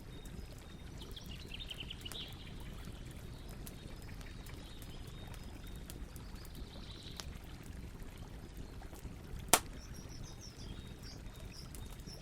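Campfire burning with a steady low rush and scattered small crackles, and one sharp, loud pop about three-quarters of the way through. Birds chirp faintly twice, near the start and after the pop.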